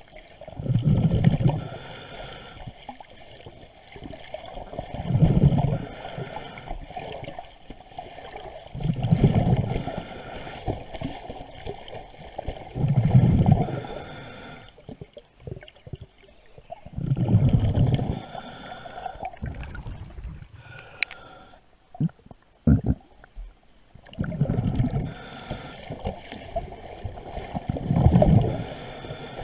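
Underwater recording of a diver breathing through a scuba regulator: a low burst of exhaled bubbles about every four seconds, with a few sharp knocks about three quarters of the way through.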